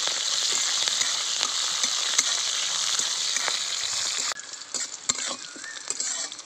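Garlic cloves, dried and green chillies and nigella seeds sizzling steadily in hot oil in a metal kadai, with a metal spatula scraping and clicking against the pan as they are stirred. About four seconds in, the sizzle falls away abruptly, leaving fainter scrapes and clicks.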